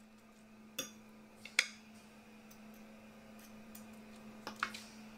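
Metal forks clicking against a plate while shaping ground pork sausage mixture. There are a few sharp clicks about a second in and a pair near the end, over a steady low hum.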